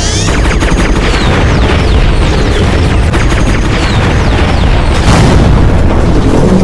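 Loud, distorted booming soundtrack of an animated fight scene, dense and bass-heavy, crossed by many quick falling whooshes, with a louder flare about five seconds in.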